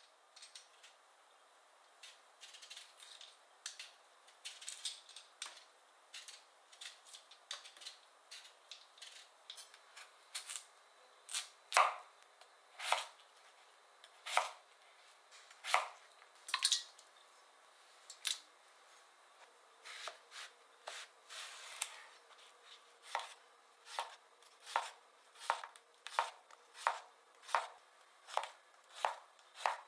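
Chef's knife cutting vegetables on a cutting board: a few separate cuts through potato, then a steady run of chopping through zucchini near the end, about two strokes a second.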